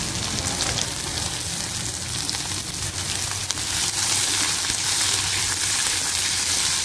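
Sliced onions sizzling in hot oil in a kadai, a steady hiss that grows a little louder about four seconds in, when a wooden spatula starts stirring them.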